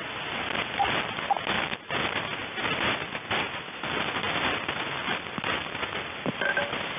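Shortwave radio static, a dense crackling hiss, with two short beeps about half a second apart near the start: the test tones of the Russian military Vega net on 5372 kHz before its voice message. A brief higher beep comes near the end.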